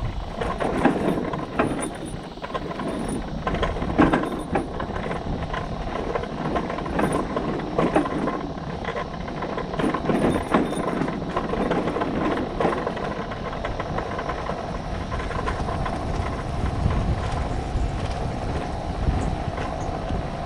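Motorcycle ridden over a rough, bumpy road: the bike rattles and knocks over the bumps above a low engine and road rumble. The knocking thins out after about thirteen seconds, leaving a steadier rumble.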